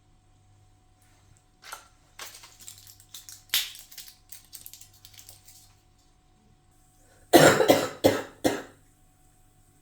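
A person coughing three times in quick succession near the end, harsh and loud, typical of someone who is sick; before it, a few seconds of light clicking and rustling from objects being handled.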